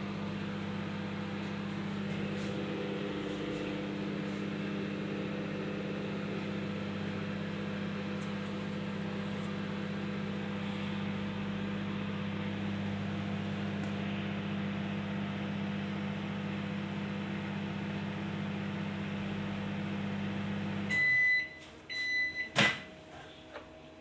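Von microwave oven running with a steady mains hum while its turntable turns, yet not heating the water: the oven's fault. About 21 seconds in the hum stops, the oven gives a few short end-of-cycle beeps, and a sharp click follows as the door is opened.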